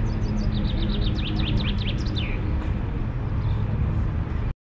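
A small songbird sings a fast trill of short descending notes that ends in a falling flourish, over a steady low outdoor rumble; the sound cuts off suddenly near the end.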